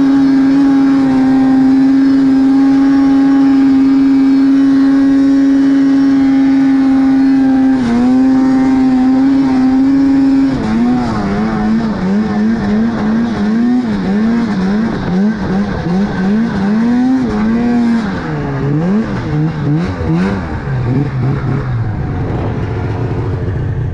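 Snowmobile engine held at steady high revs for about ten seconds as it climbs a snowy slope. Then the throttle is blipped on and off over and over as the revs fall, and it settles to a low idle near the end.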